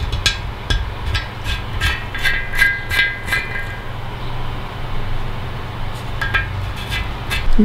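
Light knocks on an air suspension tank, each with the same short ringing tone, about three a second for the first few seconds and twice more near the end, over a steady low rumble.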